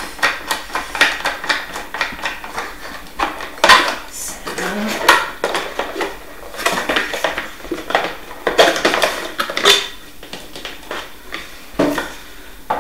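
Hard plastic metal-detector parts clattering and knocking on a tabletop and against a cardboard box insert as they are lifted out, with cardboard rustling between irregular sharp knocks.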